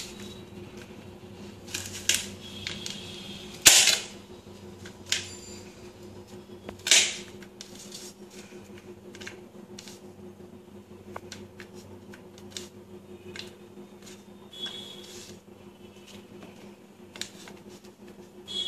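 Kitchen knife cutting fresh okra pods on a plate: irregular sharp clicks and knocks as the blade cuts through and strikes the plate, a few of them louder, over a faint steady hum.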